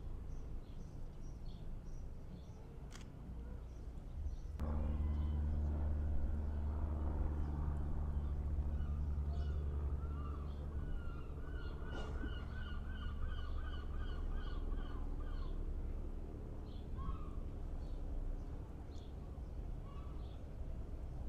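Gulls calling: scattered yelps, then a long run of about a dozen quick, evenly spaced calls in the middle. Under them a steady low engine-like hum starts suddenly about four seconds in and lasts most of the way.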